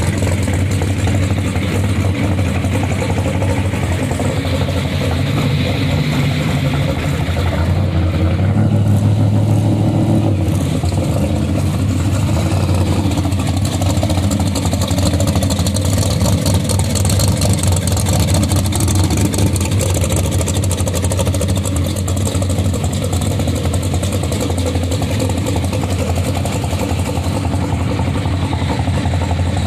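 A vehicle's engine running steadily under way, a constant low drone with road noise, swelling slightly about eight to ten seconds in.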